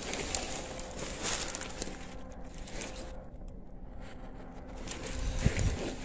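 Steady hum of a distant cotton factory's motors running, with rustling and crackling of brush and dry leaves near the start and again near the end as someone pushes through undergrowth.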